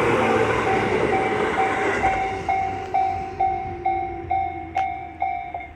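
Japanese level-crossing warning bell ringing a little over twice a second while an electric train passes and its noise fades away. The bell stops near the end, the sign that the train has cleared the crossing.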